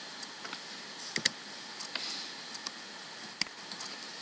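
Scattered clicks and light taps from working a computer keyboard and mouse: a close pair of sharp clicks about a second in, a single sharp click near the end, and fainter taps between, over a steady faint hiss.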